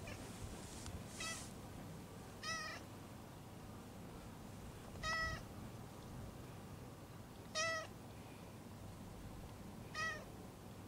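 A cat giving short, quiet meows, five of them a couple of seconds apart, in response to having its lower back patted.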